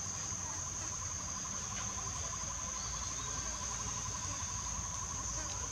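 Steady high-pitched drone of insects, with a rapid, evenly pulsing trill lower down running alongside it.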